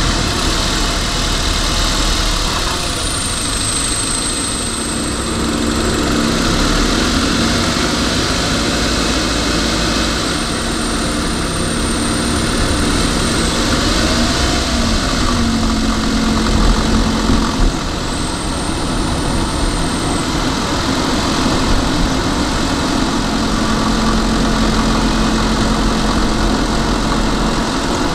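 A car driving along a road, heard from inside the cabin: steady engine and tyre noise.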